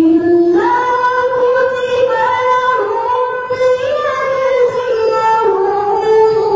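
A woman singing a slow melody in long held notes that step up and down in pitch, starting suddenly.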